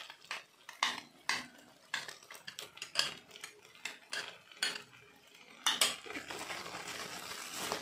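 Metal spoon clinking and scraping against a glass bowl while stirring yogurt and spooning it out, in irregular light taps. Near the end a soft steady hiss sets in.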